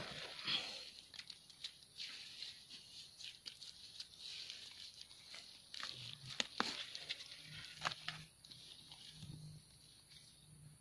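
Hands picking cardamom pod clusters at the base of the plants: rustling of dry leaf litter and crackling, with scattered sharp snaps as pods are pulled off.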